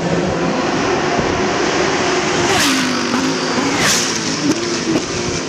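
GT race car engine at full race speed as the car passes close by, its note dipping and rising in pitch, with two brief sharp bursts about two and a half and four seconds in.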